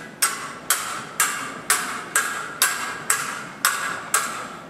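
Stage swords clashing in a steady rhythm, about nine ringing blade strikes evenly spaced at roughly two a second.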